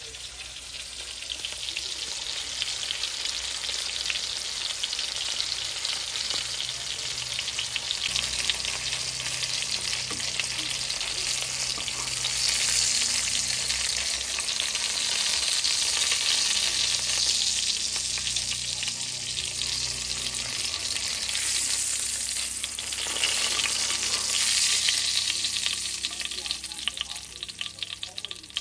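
Coated chicken cutlets shallow-frying in oil in a skillet: a steady sizzle full of fine crackles.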